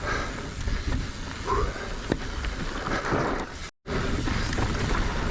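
Mountain bike riding down a loose, steep dirt trail: tyres crunching and sliding over loose dirt, with rumbling wind noise on the microphone and a sharp click about two seconds in. The sound drops out for a split second past halfway.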